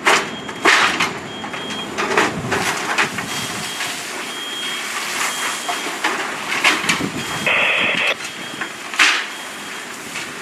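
Fireground work noise: irregular clattering and knocking over a steady rushing background, with a faint high beep repeating about once a second. A louder harsh burst comes about three-quarters of the way through.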